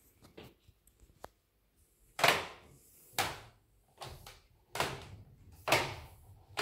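Footsteps going down wooden stairs: after a few faint clicks, firm steps land about once a second from about two seconds in, each with a short echo.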